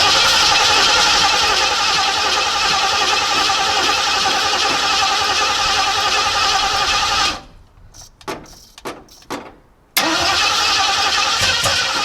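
A 1968 Ford Ranchero's engine being cranked over by its starter for about seven seconds. After a pause with a few short bumps of the starter, it cranks again near the end. The freshly rebuilt Edelbrock carburettor's float bowls are still empty, so the engine is being turned over to fill them.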